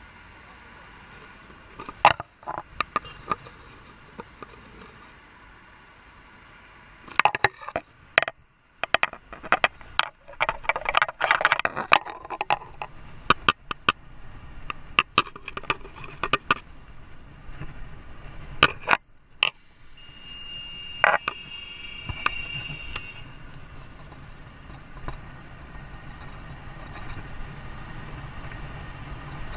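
A rapid, irregular series of sharp clicks, knocks and scrapes, densest through the middle. Then a vehicle engine runs steadily and grows louder toward the end, with a short high tone sounding for about three seconds as the engine noise comes in.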